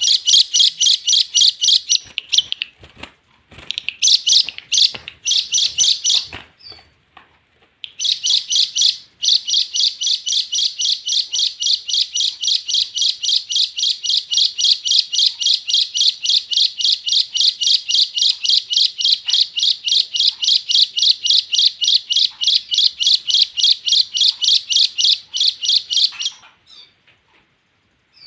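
A bird calling a long, rapid run of repeated high chirps, about five a second, pausing briefly about seven seconds in and stopping shortly before the end.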